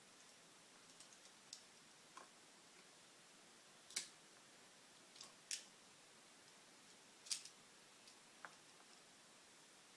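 Locking pliers (vise grips) snapping shut again and again as they are squeezed to lock, each click pressing a pin a little further into a shaft. Sharp single clicks come every second or two, a few of them louder.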